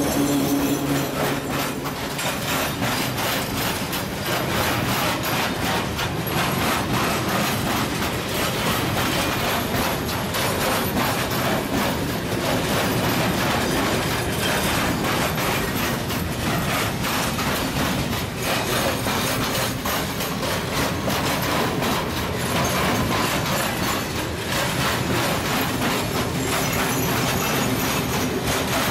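Freight train of open coal wagons rolling past close by: a steady loud rumble with a continuous clatter of wheels over the rails. The electric locomotive's hum fades out about a second in.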